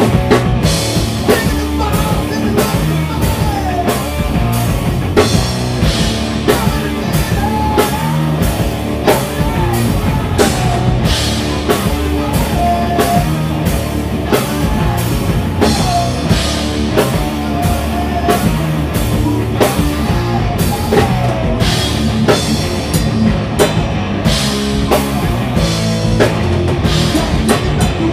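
A live heavy stoner-thrash band playing at full volume: distorted electric guitars, bass and a drum kit, with regular drum and cymbal hits and bending guitar notes over the top.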